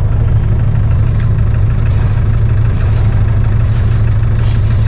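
Tractor engine idling with a steady, deep, even hum.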